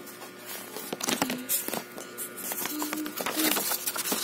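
Paper rustling, with scattered taps and clicks, as the pages of a children's activity book are handled and turned.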